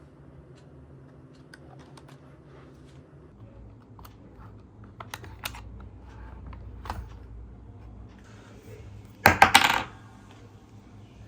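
Small hard plastic objects being handled, with light scattered clicks and taps, then a loud, brief clatter about nine seconds in, over a steady low hum.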